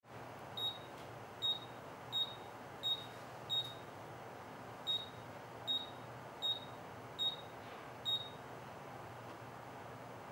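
Control panel of a Signode BXT2 battery strapping tool beeping at each button press as the strap tension setting is stepped through. There are ten short, high beeps, a little under one a second, with a longer pause near the middle.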